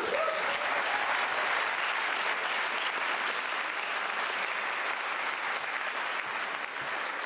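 Audience applauding steadily, sustained clapping from a full room at the close of a talk.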